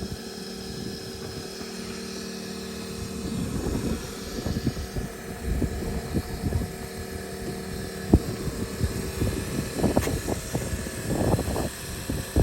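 Steady vehicle hum for the first few seconds, then irregular low gusts and thumps of wind buffeting the microphone.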